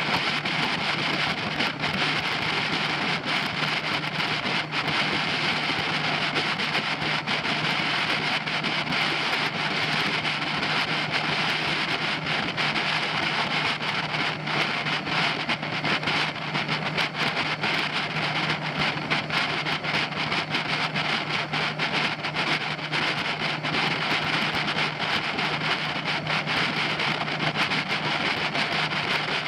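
Suzuki DF90 four-stroke outboard running steadily with the boat under way, a constant engine drone under the rush of wind buffeting the microphone and water along the hull.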